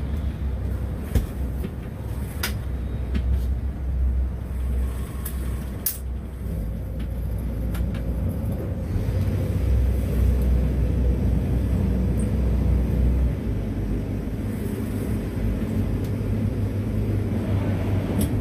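Motor yacht's engine running slowly, a steady low drone, with a few sharp clicks in the first six seconds.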